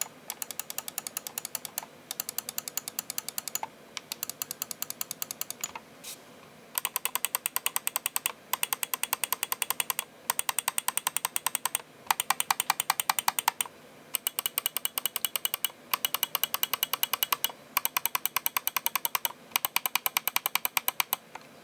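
Logitech PRO X Superlight gaming mouse buttons clicked rapidly, in runs of one to two seconds separated by short pauses. From about seven seconds in the clicks are louder and sharper.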